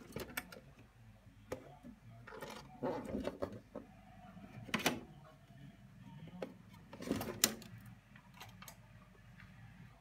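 Worcester Greenstar combi boiler starting on a heating demand: a low steady hum under scattered mechanical clicks and short knocks as the diverter valve actuator drives down to the heating position.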